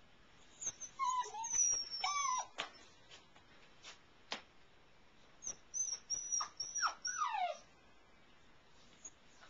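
Airedale terrier puppy whimpering and squealing in two bursts of high, mostly falling cries, about a second in and again from about five and a half seconds, with a few sharp clicks between.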